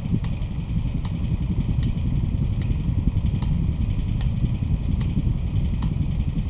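Electric fan running steadily: a low, fluttering rumble of moving air, with a light tick a little more than once a second.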